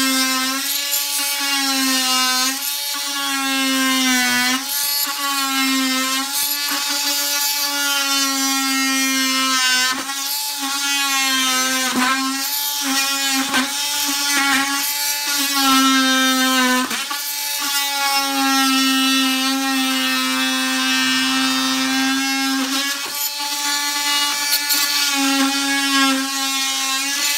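Oscillating multi-tool running with a steady high buzzing whine as its blade plunge-cuts into the bottom of a door casing, undercutting the trim so a flooring plank can slide beneath it. The tone falters briefly a few times as the blade is worked into the cut.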